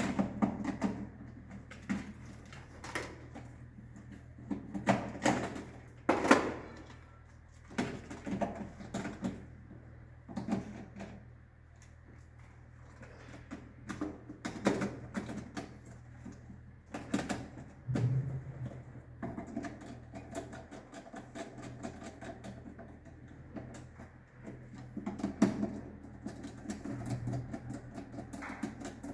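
Irregular clicks and knocks of miniature circuit breakers being handled, moved and clipped into place in a distribution board.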